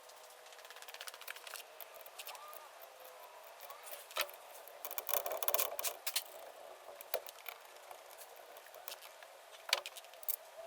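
Small metal carburetor parts clinking and clicking against each other and the bench as an Edelbrock four-barrel carburetor is put back together by hand, with a busier run of clinks about five seconds in and single sharp clicks now and then.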